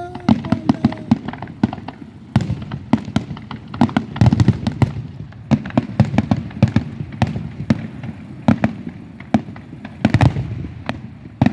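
Aerial fireworks bursting in a dense, irregular barrage, several booms and sharp reports a second, overlapping one another.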